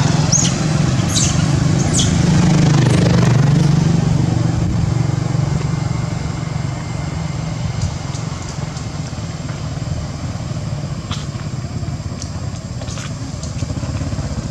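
A motorcycle engine running close by, loudest in the first few seconds and then fading away as it passes. A few short high squeaks in the first two seconds.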